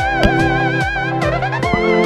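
Background music: an electronic track with a steady beat and melodic lead notes.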